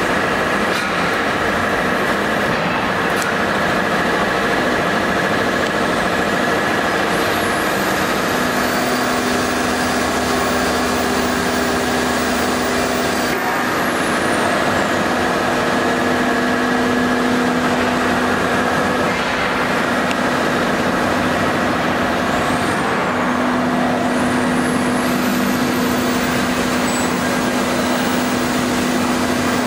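STM1325-3T three-spindle CNC wood router running: steady loud machine noise with a high spindle whine. A lower hum sets in about eight seconds in, comes and goes, and an occasional faint high tone glides up and down.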